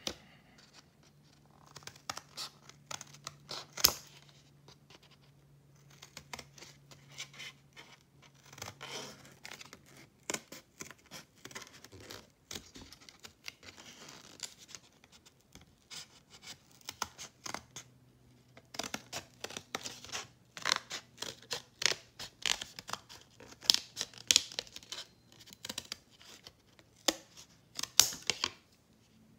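Scissors cutting through thin cereal-box cardboard in a long run of short, irregular snips.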